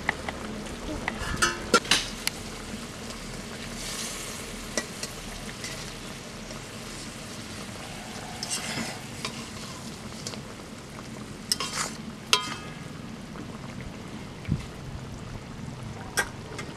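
Hilsa fish pieces frying in oily gravy in a metal kadai, with a steady sizzle. A metal spatula scrapes and clinks against the pan several times as the fish is turned.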